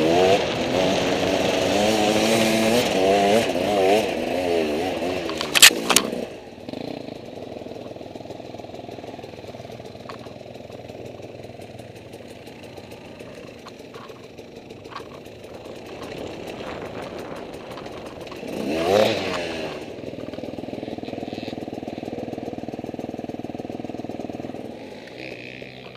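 Enduro dirt bike engines running on a dirt trail, the engine note rising and falling with the throttle, loudest over the first six seconds. A sharp knock comes about six seconds in, and a brief louder swell of engine note rises and falls near nineteen seconds.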